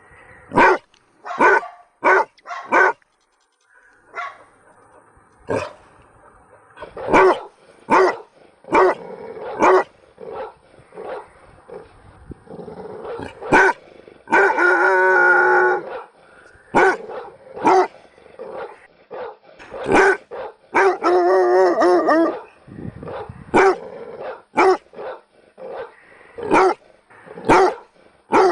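Dogs barking loudly in short, irregular barks, sometimes in quick runs of two or three. Twice, at about the middle and about two-thirds of the way through, a dog gives a longer drawn-out pitched call lasting a second or two.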